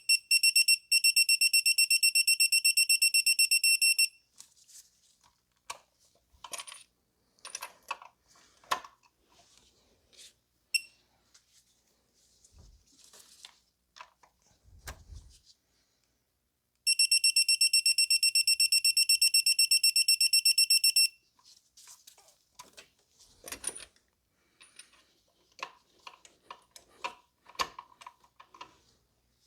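Mac Tools 3/8-inch electronic torque wrench beeping rapidly for about four seconds, twice: at the start and again about 17 seconds in, the signal that a spark plug has reached the set 17 ft-lb. In between come scattered clicks and knocks of the wrench and socket being handled.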